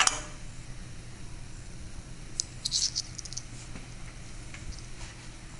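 Light clicks and rattles of small metal hardware being handled as the lift cable's end fitting is unbolted from the frame: one sharp click at the start, then a quick cluster of clicks about two and a half to three and a half seconds in. A steady low hum lies underneath.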